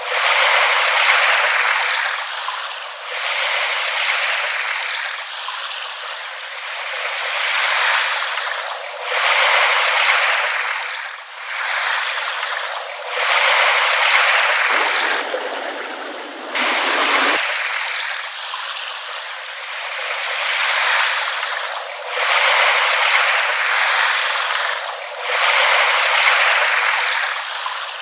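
Small waves lapping at the shore, the wash swelling and falling back every two to three seconds.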